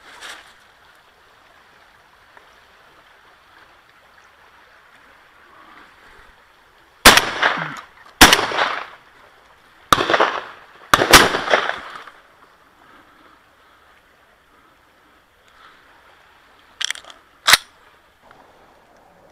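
Shotguns fired at wood pigeons: four loud shots in two pairs, each pair about a second apart, every shot ringing out briefly, then two fainter shots in quick succession near the end.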